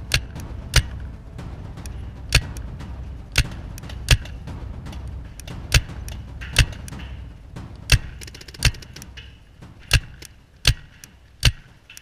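Paintball markers firing: a string of sharp, loud pops at irregular intervals, about a dozen in all, over a low steady rumble.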